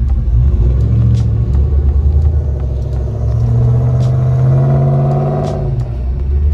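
Vehicle engine rumbling, then accelerating hard with its pitch rising for nearly three seconds before dropping back near the end.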